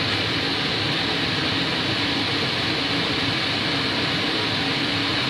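Coal forge running hot with forced air: a steady, unbroken rushing noise of the blower and fire while the bar reheats.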